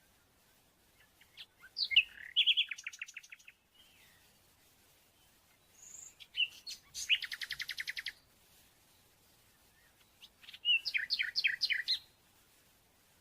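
A small songbird singing three separate phrases, each a fast trill of repeated high chirps.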